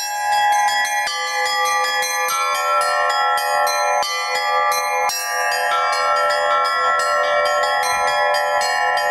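Russian Orthodox church bells rung by hand in a fast, steady rhythm, the small bells struck several times a second over the long ringing tones of the larger bells, the pitches changing every second or so.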